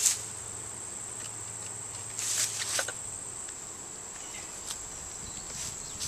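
A steady high-pitched insect trill from the surrounding grass, with a faint low hum of bees over the open hive. About two seconds in come a few brief scuffs and knocks as the hive boxes are handled.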